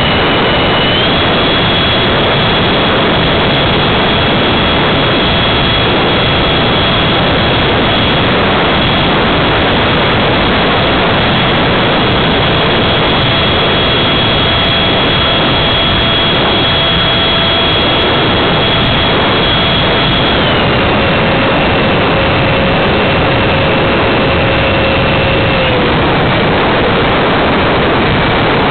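Electric ducted fan of a Habu RC jet running in flight, heard from on board: a loud, steady rush with a high whine. The whine steps up in pitch about a second in, then drops in two steps near the end as the throttle comes back.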